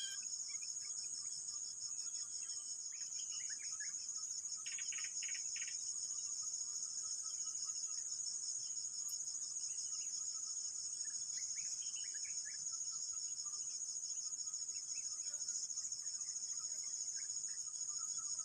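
Steady, high-pitched insect chorus with a fine pulsing texture, with scattered short bird chirps and whistles over it, including a quick run of repeated notes about five seconds in.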